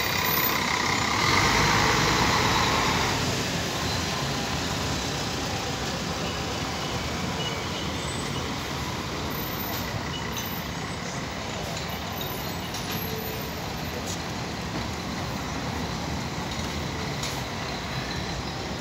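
Articulated city bus driving past close by, loudest for the first three seconds or so, then fading into steady street traffic noise.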